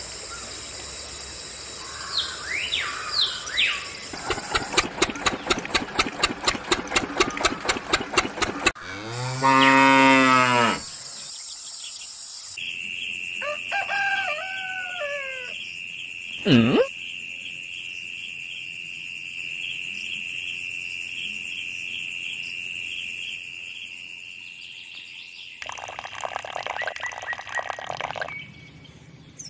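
A layered countryside soundtrack. Chirping calls come first, then a fast, even clicking for a few seconds. The loudest part is a single long cow moo about nine seconds in. Then a steady high-pitched buzz runs for over ten seconds, with a few bird-like calls over it.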